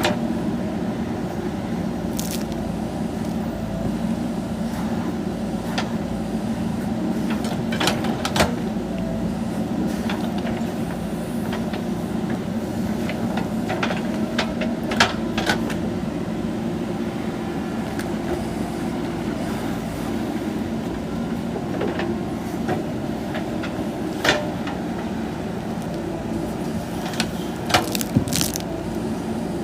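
JCB backhoe loader's diesel engine running steadily under digging load, with a few sharp metallic knocks about 8, 15, 24 and 28 seconds in.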